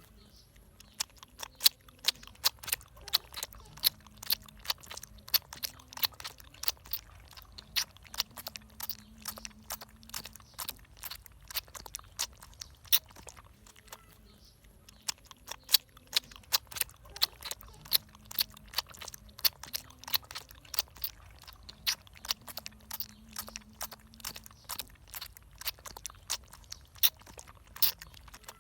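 Puppy chewing and crunching, with many sharp crunches a second and a brief pause about halfway through.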